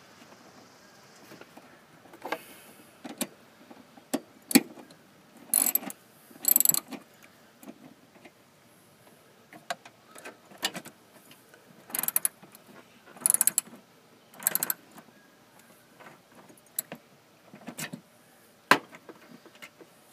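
Socket ratchet wrench clicking in short runs as a fastener is driven back in, mixed with scattered clinks and knocks of the metal tool against the engine bay.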